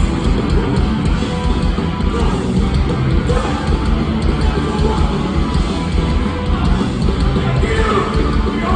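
Hardcore punk band playing loudly live in a theater, heard through the audience's recording.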